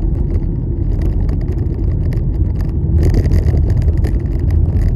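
Steady low rumble of a car driving, heard from inside the cabin, with a crackling hiss joining about three seconds in.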